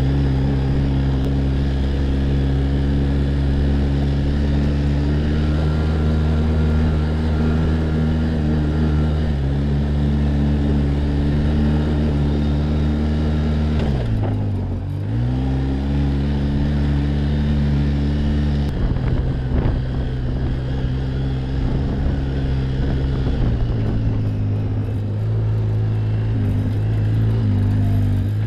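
ATV (quad bike) engine running under way at a steady speed. About halfway through its pitch dips sharply and climbs back. In the last third it runs at a lower, less even pitch, wavering near the end.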